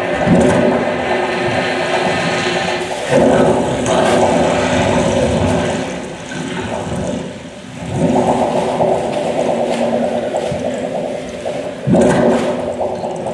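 Performance soundtrack of dense, rushing, water-like noise over a low steady drone. It dips for a couple of seconds in the middle and then swells back up.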